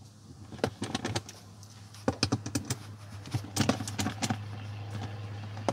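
Ratchet socket wrench with an extension clicking in several short runs as it unscrews a 10 mm bolt from the floor cup holder.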